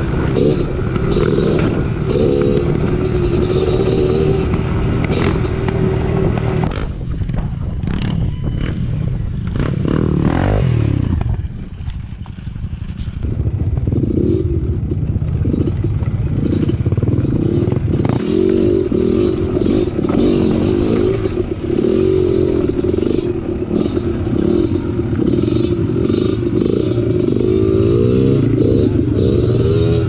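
Dirt bike engine running while riding. The revs drop and ease off about a third of the way through, then pick up again and rise and fall near the end, with some clatter from the bike.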